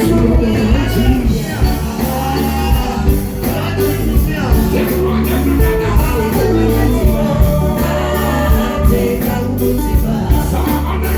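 Amplified music with a steady beat and heavy bass, with singing over it.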